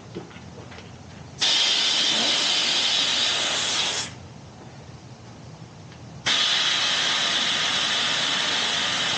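Air hissing out of a bicycle tyre's inner tube through its Schrader valve as the valve core is pressed down with a small tool, deflating the tyre. The hiss starts about a second and a half in and stops after a few seconds, then starts again about two seconds later and keeps going.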